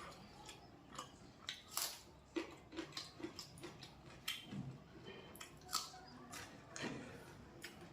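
A person chewing food, with irregular wet mouth smacks and clicks about once or twice a second.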